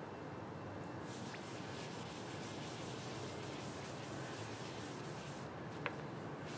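Soft, steady rubbing of a gloved hand wiping clear Danish oil into bare walnut veneer, with a light click near the end.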